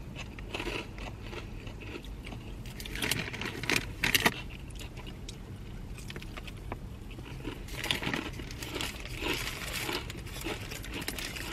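Close-up eating sounds: crunching Hot Cheetos and biting and chewing a toasted sandwich, with crackly bursts about three to four seconds in and again around eight to ten seconds. Paper wrapper and chip bag rustle in between.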